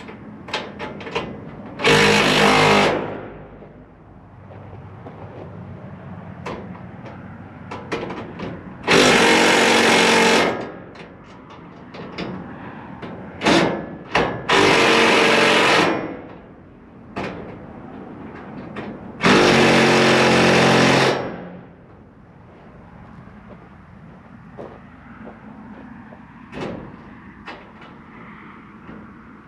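Power driver running in four bursts of a second or two each, tightening down the bolts on solar panel racking, with small clicks and knocks of hardware between bursts.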